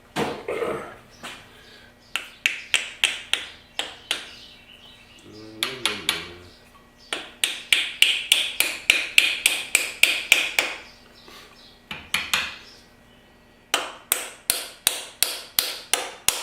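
Hammer striking a glued wedge into the slit in a small hammer's handle to lock the head on: three runs of quick, sharp strikes, about four a second.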